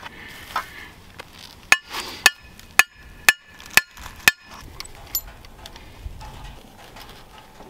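Hammer driving a metal trap stake into the ground: six ringing metal-on-metal blows, about two a second, starting a little under two seconds in.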